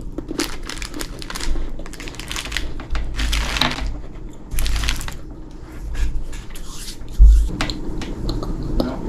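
Irregular close-up crackling and clicking as snacks and their packaging are handled, with a few dull thumps, the loudest a little after seven seconds in.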